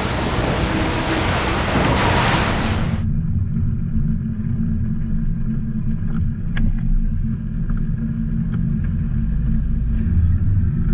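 Wind and water rushing past a boat under way, a loud even hiss that cuts off about three seconds in. After that, a low steady engine rumble at idle, with a few light clicks.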